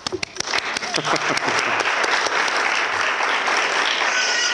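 Audience applauding. It starts with a few separate claps and within about a second fills out into steady applause, with a few voices mixed in.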